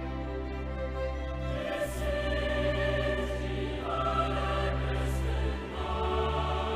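Background music: a choir singing held chords over orchestral accompaniment, the chords changing every two seconds or so.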